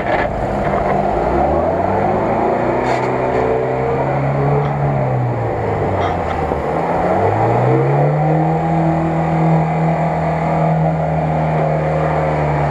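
UAZ-469 off-roader's engine revving under load as it wades through a muddy pond: the revs climb, sag about five to seven seconds in, then climb again and are held high.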